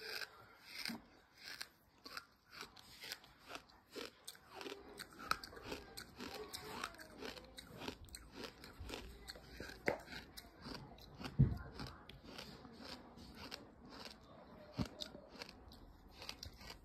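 Close-up chewing of gritty sand in small bites: a steady run of short, gritty crunches, several a second, with one louder thump about eleven seconds in.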